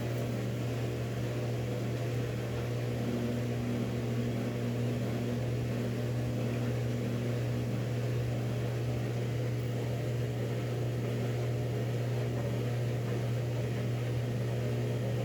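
Whirlpool washing machine running mid-wash with a steady, even hum.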